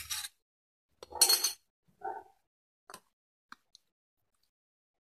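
A metal ladle and spoon clinking against dishes while broth is served out, with a liquid plop. There are several clinks and ticks, the loudest clatter about a second in.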